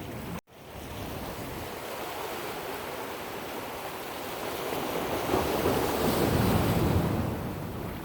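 Ocean waves washing with wind buffeting the microphone, swelling louder for a couple of seconds past the middle. The audio cuts out for an instant about half a second in.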